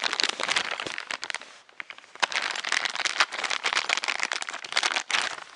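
Plastic packaging crinkling and rustling as small printer parts are handled, a dense run of crackles in two spells with a short pause between.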